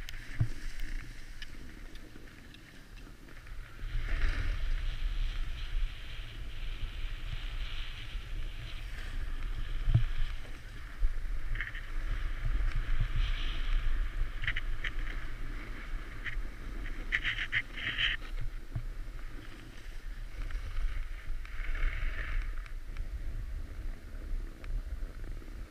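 Snowboard sliding and scraping over packed snow, a steady hiss that grows louder about four seconds in, with wind buffeting the body-mounted camera's microphone and a few short scrapes or clicks near the middle.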